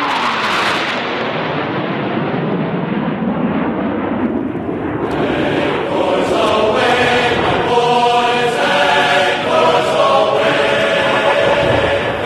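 Navy F/A-18 Hornet jets making a low pass, a loud, dense roar whose pitch drops as they go by near the start. From about halfway through, steady sustained tones mix in with the roar.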